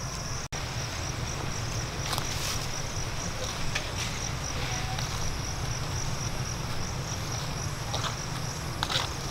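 Insects trilling steadily in a high, pulsing tone over a low rumble, with a few faint clicks. The sound cuts out for an instant about half a second in.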